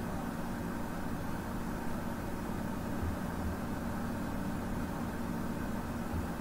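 Steady low background hum with hiss and a faint constant tone, unchanging throughout, with no distinct clicks or other events.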